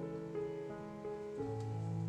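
Gentle background music: held keyboard chords whose notes change every half second or so.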